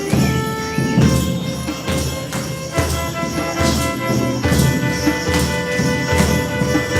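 Live instrumental music: held notes over a steady beat of drums and jingling percussion.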